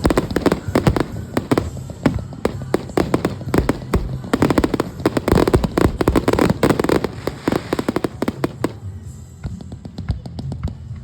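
Fireworks show opener: a dense, rapid barrage of bangs and crackling bursts from aerial shells, thinning out briefly near the end.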